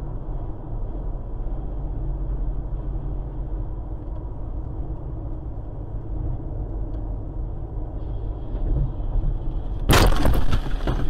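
Steady road and engine noise inside a car cruising on a motorway, then a sudden loud smash about ten seconds in as the windscreen is struck and shatters, with crackling glass after it.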